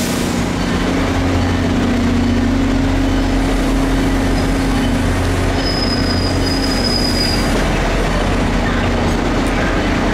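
A train running close by with a steady low drone, and a thin high wheel squeal from about five and a half to seven and a half seconds in.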